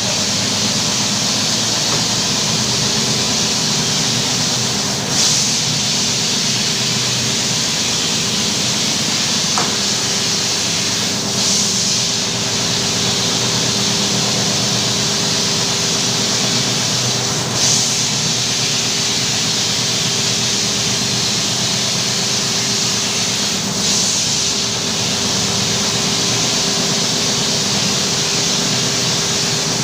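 Electric carpet-washing machine running steadily: a motor hum under a constant hiss of water and brushing, with a short hissing surge about every six seconds as it cycles.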